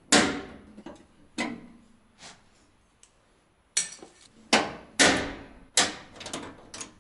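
Knockout tabs being snapped out of a steel breaker-panel cover with pliers: a string of about eight sharp metallic clicks and knocks at irregular intervals.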